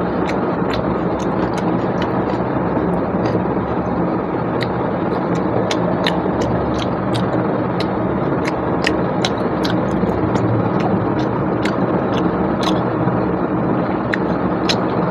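Chewing and sharp wet mouth clicks, a few per second at uneven intervals, from someone eating rice and mutton, over a steady loud background rumble.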